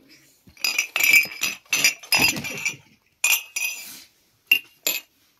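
Drinking glasses clinking as they are handled and set upside down in a plastic dish rack: a quick run of clinks, then two sharp single clinks near the end.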